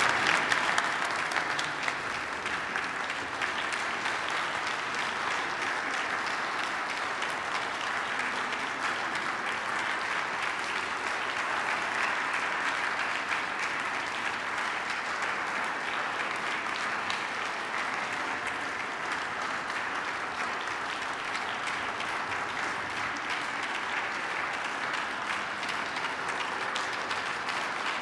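Large audience applauding steadily, a little louder at the start and then holding an even level.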